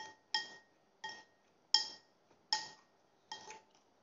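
A metal fork clinking against a ceramic bowl about seven times at an uneven pace, each clink leaving a short ring.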